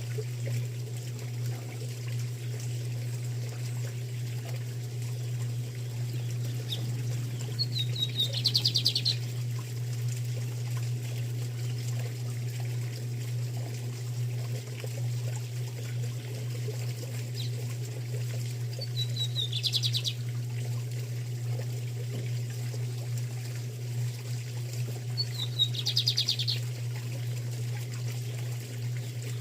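Lined seedeater (bigodinho) singing three short songs, about ten and six seconds apart, each a couple of quick notes running straight into a fast, high trill. Under them is a steady low hum.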